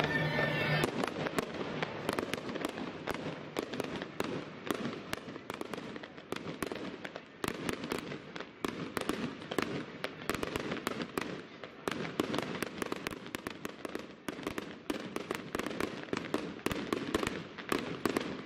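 Fireworks going off overhead: a dense, uneven run of sharp cracks and pops, many a second, with some louder bangs among them. It opens with a brief moment of music that cuts off about a second in.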